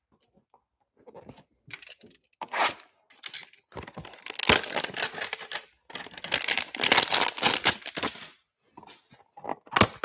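Clear plastic wrapping crinkling and tearing as trading-card packs are ripped out of hanger boxes, with scattered rustles and two long, loud stretches of crinkling in the middle.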